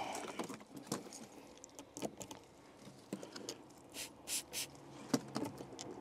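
Car key clicking and scraping in the frozen door lock of a Nissan Micra K11 as it is jiggled and forced; the key is in but the iced lock will not turn. Scattered short clicks, with a few brief scrapes about two-thirds of the way through.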